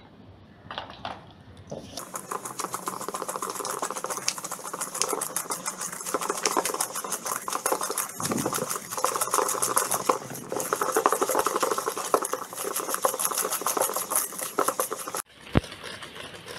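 Wire balloon whisk creaming butter and sugar by hand in a stainless steel bowl: fast, rapid clicking and scraping of the wires against the metal. It starts about two seconds in, breaks off for a moment midway, and drops suddenly in level near the end.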